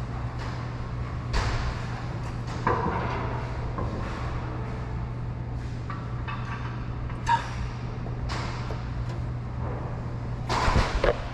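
Scattered clicks, knocks and rustles of hands handling tail-light parts and wiring, over a steady low hum. The knocks are loudest about a second and a half in, near three seconds, past seven seconds, and in a short cluster near the end.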